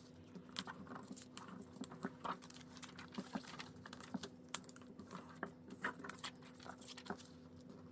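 A4 paper being folded back and forth into a fan-style accordion: irregular crisp crackles and taps as the creases are pressed, over a faint steady hum.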